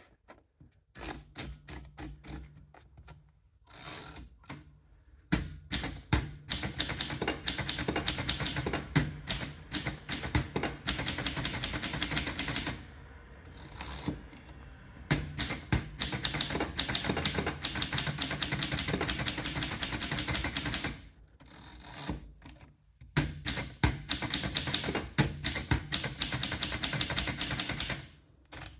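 S.I.M. manual typewriter being typed on: rapid key strikes in long runs broken by short pauses.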